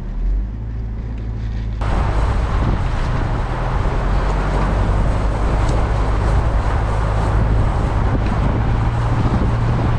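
GMC Canyon pickup driving on soft sand in four-wheel drive: a steady low engine hum, joined about two seconds in by a sudden loud rushing noise from tyres and wind.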